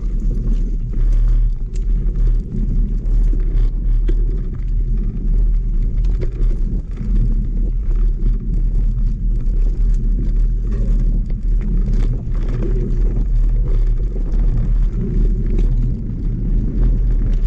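Mountain bike rolling along a dirt trail, with a steady low rumble and frequent small knocks and rattles from the bike over rough ground.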